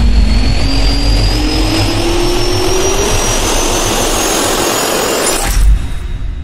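Jet-engine spool-up sound effect: a dense rushing roar with a whine that rises steadily in pitch. About five and a half seconds in it ends in a deep hit, and then it fades away.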